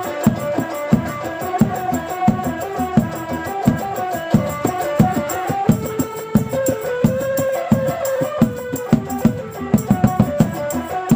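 Traditional rudat music: drums beat a steady rhythm under a sustained melody line.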